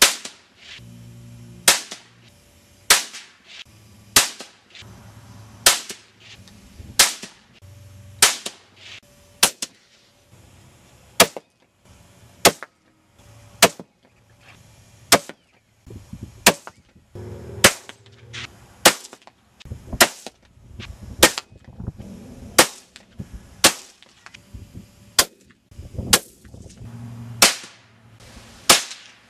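Shot after shot from a Ruger 77/17 bolt-action rifle in .17 HMR rimfire, about twenty sharp cracks roughly a second apart.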